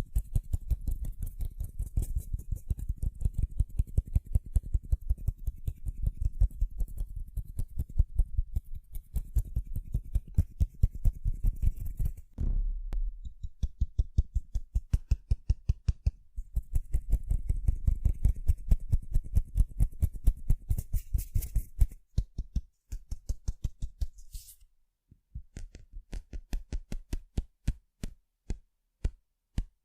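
Tapping on sunglasses: fast runs of light taps, several a second. Near the end it slows to separate taps about two or three a second.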